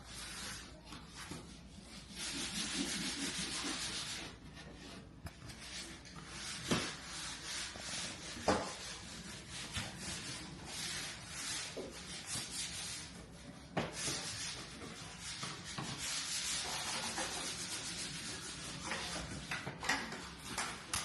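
Repeated rubbing strokes on a surface, coming in stretches of a few seconds each, with a few sharp knocks in between.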